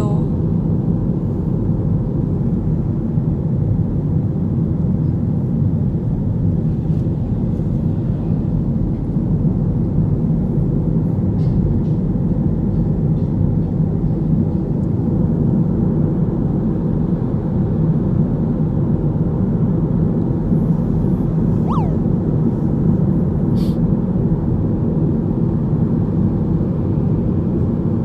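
Wind and road noise inside a moving car with the side window open: a steady low rumble of rushing air that holds even throughout.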